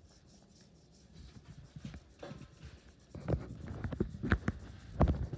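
Watercolour paintbrush scrubbing on paper, soft and irregular at first and louder after about three seconds, with a couple of sharp knocks near the end.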